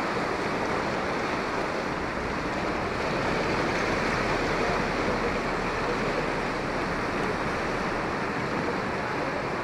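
Swollen, muddy floodwater of a river rushing past in a steady, unbroken rush.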